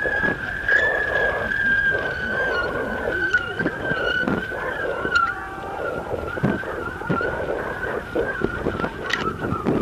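Wind buffeting and rattling at a camera mounted on a kite in flight, with a steady high whine that wavers slightly in pitch throughout.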